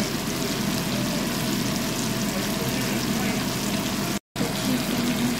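Chicken, onions and tomatoes sizzling in oil and juices in a non-stick wok, a steady crackling hiss. The sound cuts out for a split second about four seconds in.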